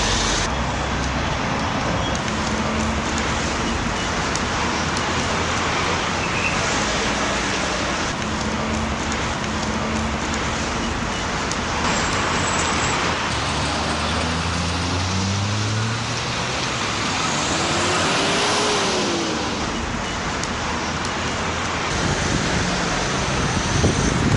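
Street traffic: a steady roar of road noise, with the engines of passing cars rising and falling in pitch now and then.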